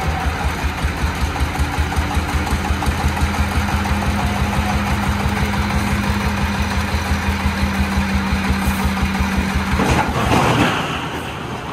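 The single-cylinder 24 hp diesel engine of a công nông farm truck runs with an even, chugging pulse. About ten seconds in, a brief loud rushing noise covers it, and then the engine sound drops away.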